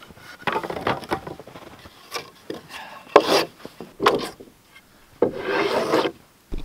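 Wooden boards being handled on a snowy lumber stack: irregular scraping of wood on wood with a few sharp knocks, and a longer scrape near the end.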